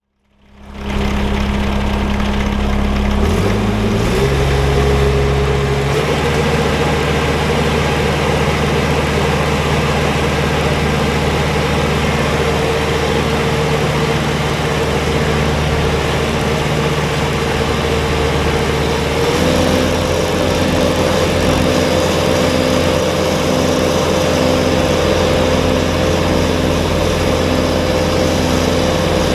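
Kubota BX23S compact tractor's diesel engine running steadily. It steps up in pitch a few seconds in and again about two-thirds of the way through as it is throttled up.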